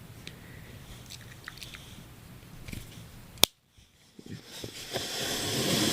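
Faint clicks and handling noise from a Victorinox Swiss Army pocketknife being worked in the hands, with one sharp click about three and a half seconds in.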